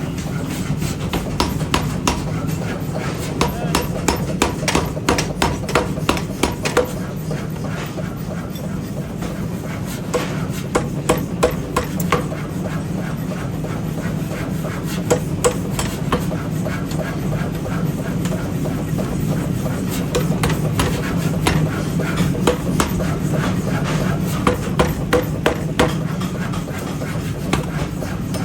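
Metal being hammered in a forging workshop: runs of quick, sharp strikes, several a second, over a steady low machine hum.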